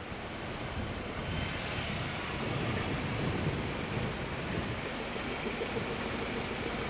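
Steady rushing road noise of a Ford Ranger Raptor on the move, heard from inside the cab: tyres and wind over the running engine.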